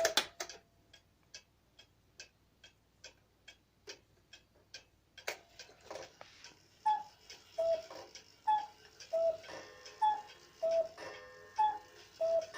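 Mayak cuckoo clock ticking steadily, then the cuckoo starts calling about halfway through: repeated two-note cuckoo calls, high then low, about four in a row, with the ticking going on underneath.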